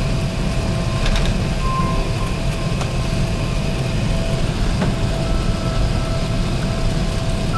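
Cabin noise inside an Airbus A380 taxiing after landing: a steady low rumble from the engines and rolling gear, with a steady hum and a few faint clicks.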